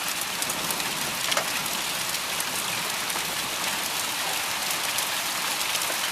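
Hail and heavy rain coming down hard: a steady hiss of rain, peppered with many sharp ticks of hailstones striking surfaces.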